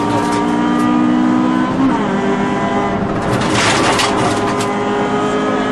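Rally car engine heard from inside the cabin, running hard at speed on a stage. The engine note drops and settles at a new pitch about two seconds in. A burst of hissing, crackling noise follows against the car's body near the middle.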